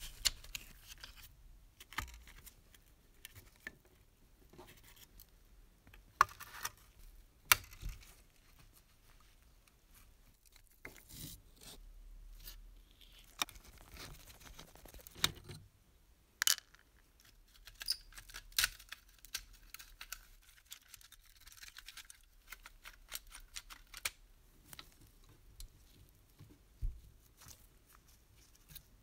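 Scattered sharp clicks, taps and scrapes of pliers and small tools working the thin sheet-metal body of a clockwork toy locomotive as it is taken apart.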